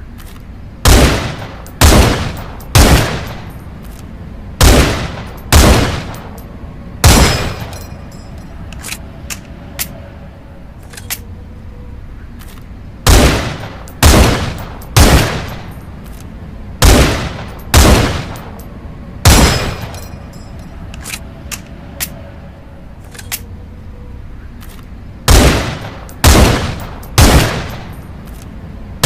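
Rifle shots from the 'M182 Pierre fusil' rifle sound effect, fired in a repeating pattern: three shots about a second apart, then two, then one, each with a short ringing tail. A few faint clicks fall in the longer pauses between the groups, over a steady background hiss.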